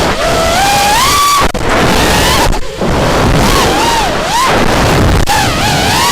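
FPV racing quadcopter's 2300 kV brushless motors and 5-inch three-blade props whining, the pitch swinging up and down with throttle, over rumbling wind noise. The sound cuts out briefly a few times.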